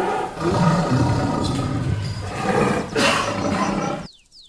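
Tiger roaring and growling in loud, rough drawn-out roars that stop abruptly about four seconds in. A faint run of quick, high, falling chirps starts right after.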